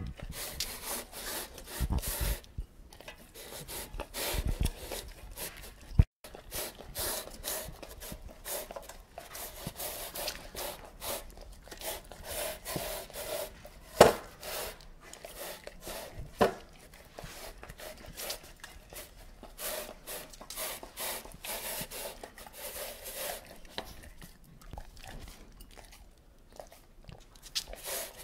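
A dog licking out a stainless-steel food bowl: a quick, irregular run of wet, rasping laps against the metal, with a few sharper knocks of the bowl, the loudest about halfway through.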